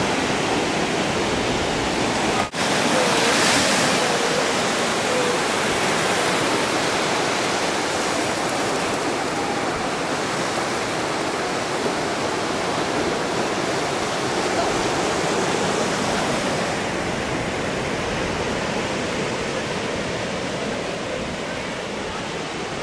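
Ocean surf breaking on a beach: a steady rushing noise that dips sharply for a moment about two and a half seconds in and eases slightly towards the end.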